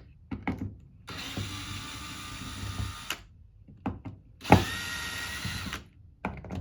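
A power drill runs in two short spells, about two seconds and then about one second, backing out the screws that hold the pump motor. Short clicks and knocks fall between the spells.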